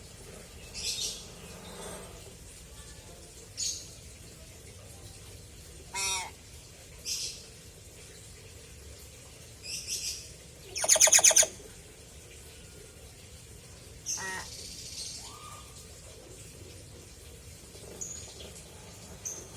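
Pet hill myna calling: a scattered series of short harsh squawks and whistled notes, the loudest a longer pulsed call about eleven seconds in.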